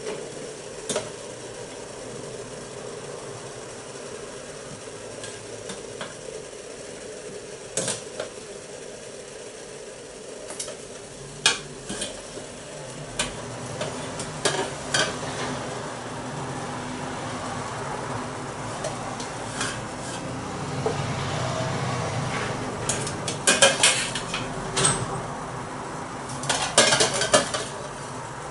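A serving utensil clinking and scraping against a stainless steel steamer pan as steamed vegetables are lifted out onto a plate, with scattered single clicks and two denser runs of louder clinks near the end. Underneath runs a steady hiss of steaming and frying.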